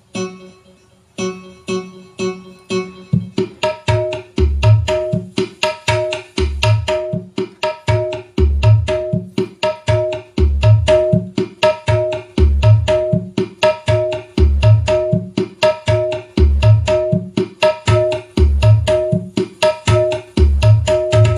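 Music with hand drums and a plucked-string melody played from a USB stick through a Fleco AV-MP326BT karaoke amplifier during a sound test. A heavy bass drum beat joins about four seconds in and repeats steadily.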